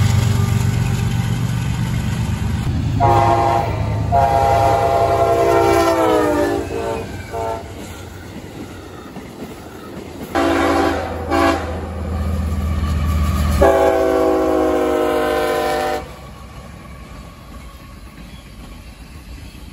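Diesel freight locomotives passing with a heavy engine rumble and wheel noise, and a locomotive horn sounding a series of blasts. First a short one and a long one that drops in pitch as it ends, then two short blasts and a long one. The train noise falls away about three-quarters of the way through.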